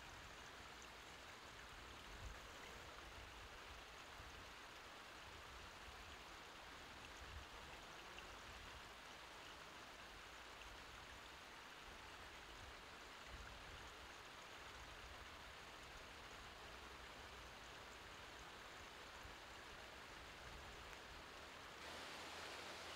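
Glacial meltwater stream rushing over rocks, a steady faint hiss of running water that grows a little louder and brighter near the end.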